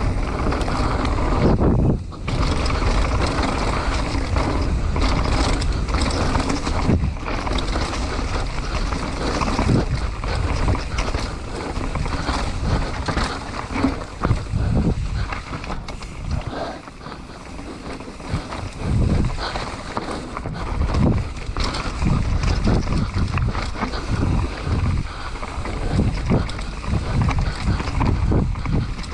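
Mountain bike running fast down a dirt enduro trail: wind buffets the microphone over the tyre noise, with frequent knocks and rattles from the bike over bumps. The noise eases for a few seconds a little past the middle, then picks up again.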